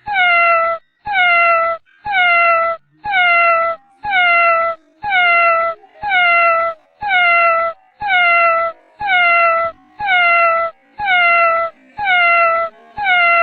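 A cat meowing over and over, about once a second, each meow a short high call that drops in pitch and then holds steady. The meows are identical in shape, like one recorded meow played on a loop.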